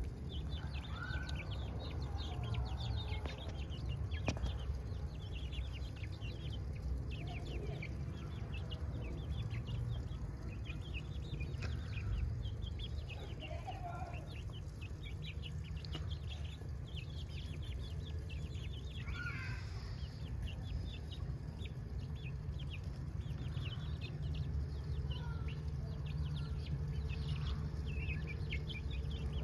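Chickens clucking and calling, with quick high chirps all the way through over steady low background noise.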